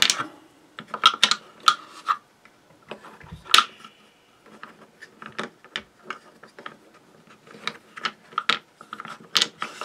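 Small wooden puzzle blocks clicking and knocking against one another and the walls of a wooden box as they are slid and pressed into place. The taps come irregularly, with one louder knock about three and a half seconds in.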